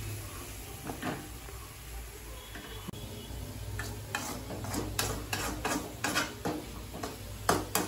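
Metal ladle stirring and scraping moringa leaf stir-fry around a metal kadai, with repeated scrapes and knocks against the pan that come faster in the second half. A low steady hum runs underneath.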